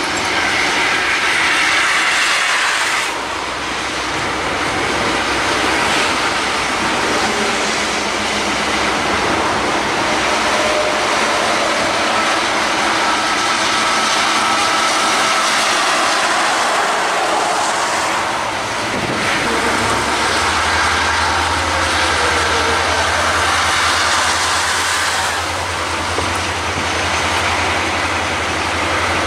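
Steady road noise and engine sound of heavy trucks driving at speed on a highway, with a deeper engine hum setting in about twenty seconds in.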